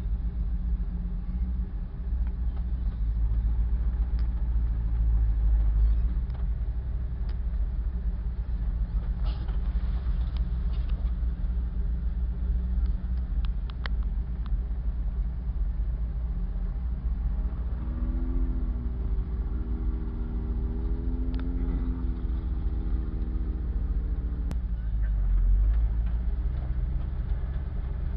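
Engine and drivetrain rumble heard from inside the cab of a 4x4 truck driving slowly along a rough dirt trail, with occasional sharp knocks and rattles from the body over bumps.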